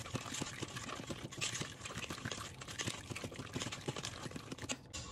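Spoon stirring thick macaroni and cheese in a stainless steel Instant Pot inner pot: a steady run of small wet clicks and scrapes.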